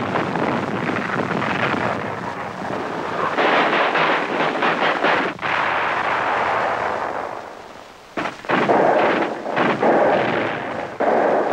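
Battle sounds: a dense run of explosions and gunfire. It dies down for a moment around seven to eight seconds in, then sharp blasts start again.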